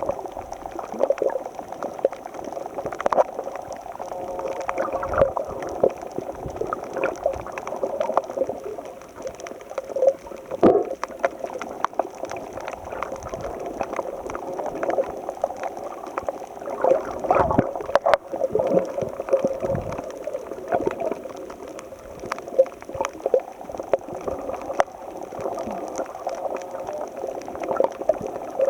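Underwater sea ambience in shallow water: muffled gurgling and sloshing of moving water, with many small crackles and clicks and a few louder knocks.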